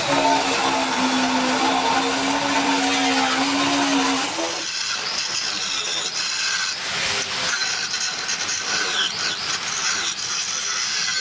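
A power tool runs with a steady whine for about four and a half seconds, then gives way to a harsher, rougher noise.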